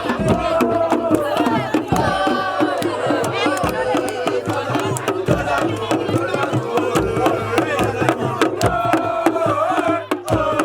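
Music: a voice singing a melody over percussion, with frequent sharp drum strokes.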